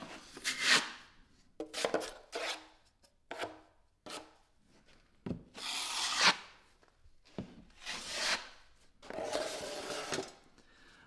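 A 10-inch steel taping knife scraping a second coat of joint compound across a drywall patch, in about six separate strokes of about a second each with short pauses between.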